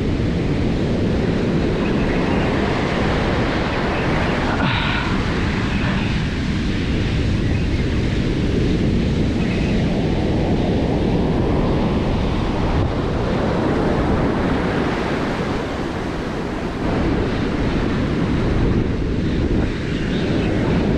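Ocean surf breaking and washing up a sandy beach, with wind buffeting the microphone throughout.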